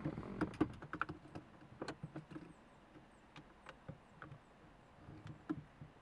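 Irregular small clicks and knocks of metal parts and tools being handled inside a car's shifter housing, busiest in the first two seconds and sparser after.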